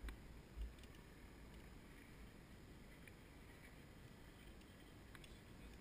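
Near silence: a faint low rumble of outdoor air, with a soft thump about half a second in and a few faint ticks.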